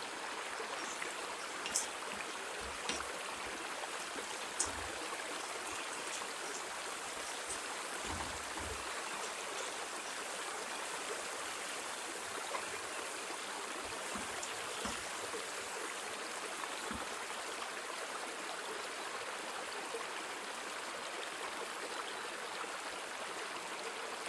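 Morels, chopped onion and asparagus sizzling steadily in hot oil in a metal frying pan, with a few faint ticks in the first few seconds.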